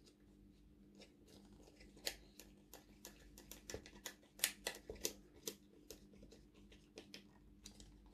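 Faint, irregular clicks and ticks of a hand screwdriver turning small screws into a plastic model-kit part, with the part and screws being handled.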